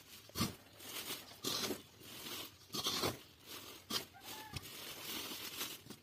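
A steel plate scraping up black rice mash from a wooden floor and tipping it into plastic bags: a series of short scrapes, with grains sliding and plastic rustling, six or seven strokes in all.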